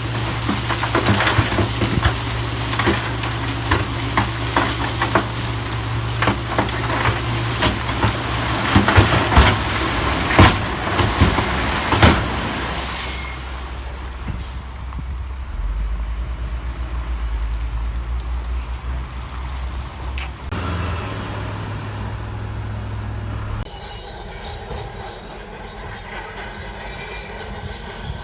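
Diesel engine of heavy earthmoving machinery running, with many sharp clanks and rattles of rock and steel for roughly the first half. Then a steadier engine drone without the clanking, which changes abruptly twice near the end.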